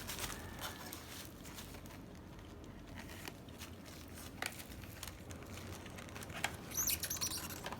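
Makeup palette packaging being handled: faint scattered taps and rustles, with a short burst of crinkling near the end.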